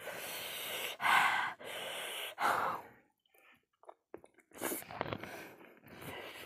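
A woman blowing out hard, breathy puffs through pursed lips with a mouthful of boiled egg: about four strong blasts in quick succession, then after a short pause a few more heavy breaths. This is a sign of the chili burn from extra-spicy noodles.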